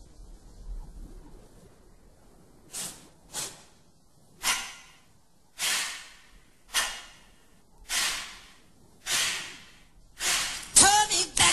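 A series of breathy whooshes, about one a second, each dying away quickly. Music with a voice comes in near the end.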